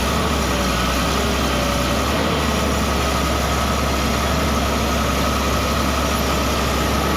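Excavator's diesel engine running steadily, a low drone with a steady high whine over it.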